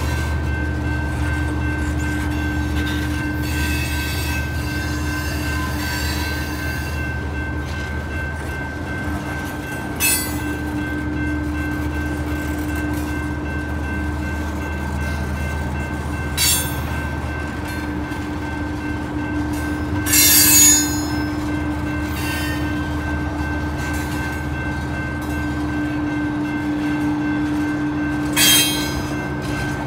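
Loaded coal train rolling past on the rails: a steady low rumble of the cars, broken four times by short, sharp wheel squeals, the loudest about two-thirds of the way through.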